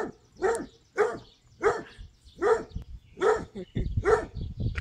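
A dog barking repeatedly at a steady pace, about one bark a second, with a low rumble near the end.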